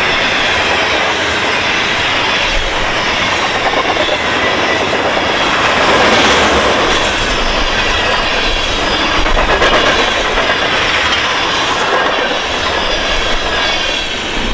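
Freight train tank cars rolling past at speed with a steady, loud noise of wheels running on the rails. The last cars go by near the end and the noise drops a little.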